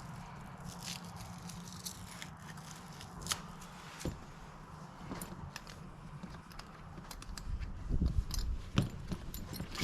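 Scattered small clicks and light knocks of hardware being handled while a canvas top is fitted, over a steady low hum. Several heavier low thumps come near the end.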